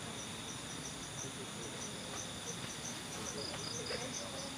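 Crickets and other night insects chirping: short high chirps repeating a few times a second over a steady high-pitched trill.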